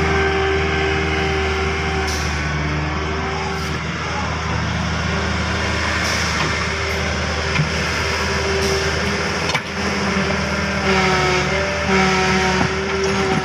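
Bulldozer's diesel engine running steadily under load, a continuous drone with a whining tone that shifts slightly in pitch after about ten seconds.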